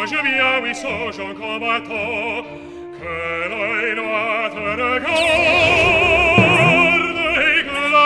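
Cartoon character singing mock-Italian opera in a wide vibrato over a musical accompaniment. Past the middle, the voice grows louder on a long held high note.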